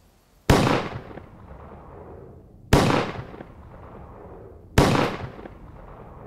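Three loud explosive bangs about two seconds apart, each with a long echoing decay.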